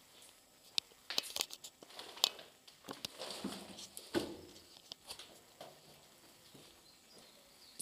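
Footsteps crunching and scraping over rubble and debris, with a run of sharp irregular crunches and clicks in the first half that settles down near the end.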